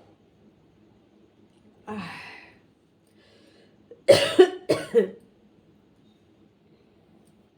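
A person lets out a short breathy exhale about two seconds in. Then, around four seconds in, they cough loudly three times in quick succession.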